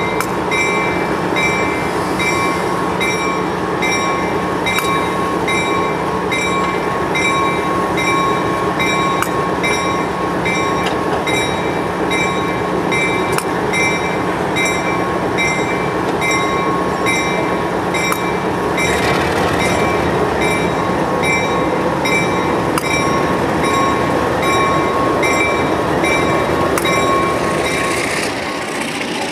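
MLW RS18 diesel locomotive with an ALCO 251 V12 engine idling, a steady hum with a whine over it. A bell rings over and over at an even pace, and the ringing stops near the end.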